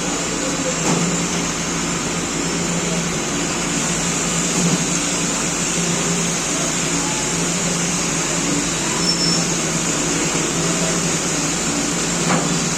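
220 mm bandsaw machine running steadily, its motor humming with a constant high hiss over it.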